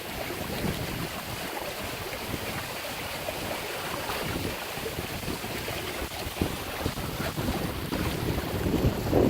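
Wind buffeting the microphone over water rushing along a sailboat's hull while under sail, growing louder near the end.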